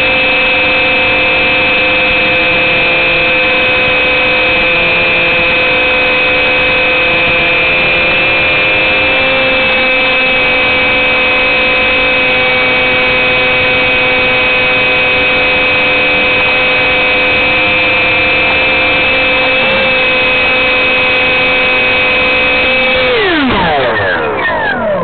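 Two RC ducted fans whining at a steady high pitch, with a lower tone wavering up and down. Near the end the whine slides steeply down in pitch as the fans spin down.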